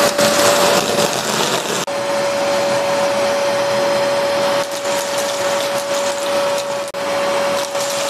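AGARO Rapid 1000-watt wet and dry vacuum cleaner running with a steady high whine over rushing air. It blows air at first, then sucks up dry corn kernels and chickpeas through the hose. The sound breaks off for a moment about two seconds in.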